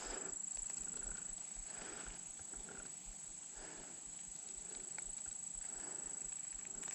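Footsteps of a person walking, soft even steps about two a second. A steady high-pitched whine runs under them.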